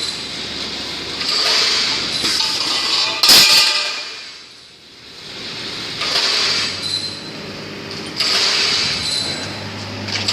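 Automatic pipe-cutting machine running its cycle: several hissing, rasping spells of a blade cutting metal pipe, each lasting a second or two, with a sharp clank about three seconds in and a quieter lull just after.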